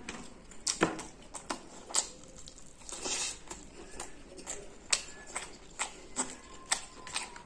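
Close-miked eating sounds: wet lip smacks and chewing clicks while eating rice and a fried battered chilli by hand. The smacks come irregularly, two or three a second, with a couple of louder ones.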